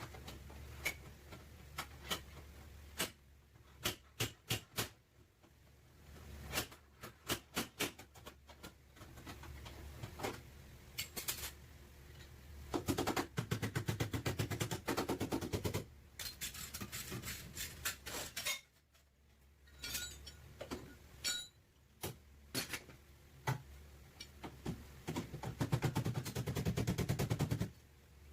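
Sheet-metal bodywork on a car's damaged back panel: scattered sharp knocks and taps on metal, then two long runs of rapid rattling crackle from a shop tool working the panel, about halfway through and again near the end.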